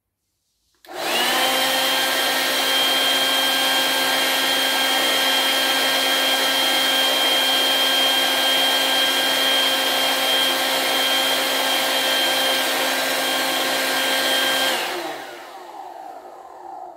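Parkside PKA 20-LI-A1 cordless 20 V inflator/compressor switching on about a second in and running steadily, a high whine over a lower motor hum. Near the end it cuts off and winds down.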